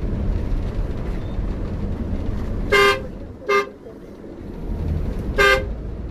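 A vehicle horn sounds three short blasts, the first two about half a second apart and the third about two seconds later, over a steady low rumble of a moving vehicle.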